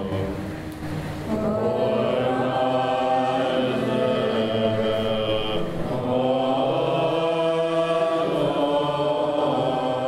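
Tibetan Buddhist monks chanting together in long held notes during a Drubchen ritual, with short breaks about a second in and again near the middle.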